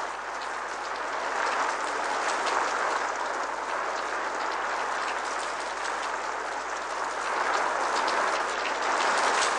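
Heavy rain pouring down in a steady downpour, swelling slightly about two seconds in and again near the end.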